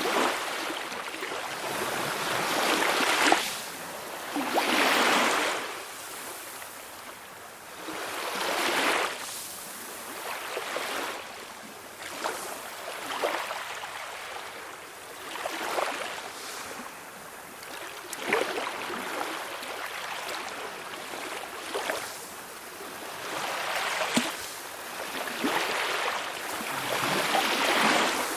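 Small waves on a calm sea breaking and washing ashore: a rush of surf that swells and falls away every two to four seconds.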